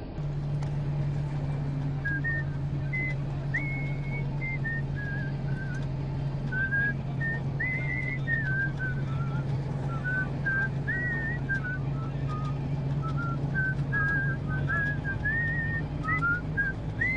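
A person whistling a wandering tune in short notes, over the steady low hum of a moving vehicle.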